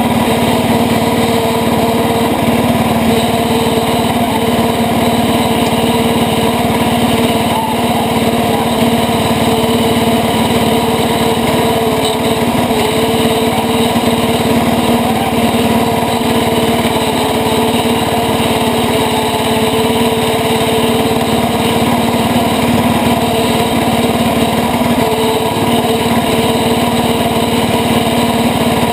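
International Cub Cadet 80 garden tractor's single-cylinder Kohler engine running steadily as the tractor drives over rough woodland ground, heard close to the engine.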